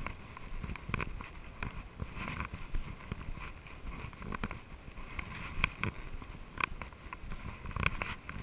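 Mountain bike riding along a dirt trail: irregular clicks and rattles of the bike jolting over bumps, over a low, uneven rumble of the tyres on the ground.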